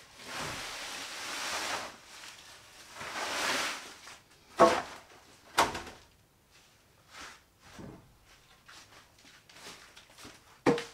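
Cut corn stalks rustling as they are moved about on a plastic tarp, then three sharp wooden knocks as boards are set down: about four and five seconds in, and again near the end.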